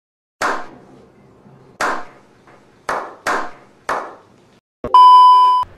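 Slow, scattered hand claps from a few people, five claps spread over about four seconds, each with a short ring after it. Near the end a loud electronic beep at one steady pitch sounds for just under a second.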